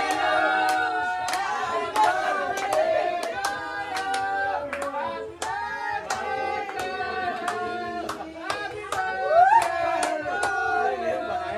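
Hands clapping in a steady rhythm, about one and a half claps a second, with singing.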